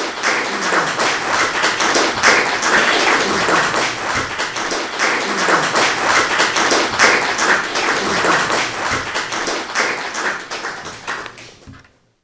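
Audience applauding with many rapid, irregular claps, dying away near the end.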